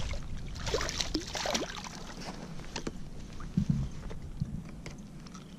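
A small speckled trout splashing at the water's surface beside a kayak as it is reeled in. It is followed by scattered knocks and rustles as the fish is lifted and handled.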